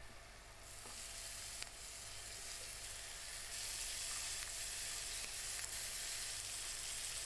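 Hot fat sizzling in a frying pan with whole prawns frying in it. The sizzle swells about a second in and gets louder again midway.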